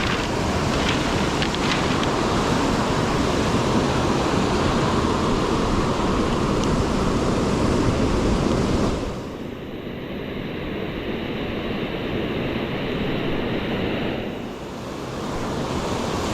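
Ocean surf breaking, with wind buffeting the microphone: a dense, steady rush that turns quieter and duller about nine seconds in, then swells back near the end.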